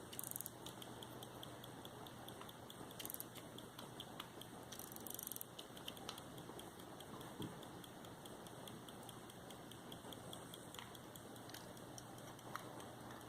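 Faint, rapid, steady ticking of a late-17th-century English verge fusee pocket watch movement, with a few brief scratchy handling noises in the first half.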